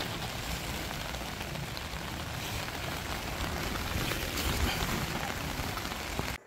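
Steady rain falling on a wet tent's fabric and the grass around it, with low rumbling wind noise on the microphone. It stops suddenly near the end.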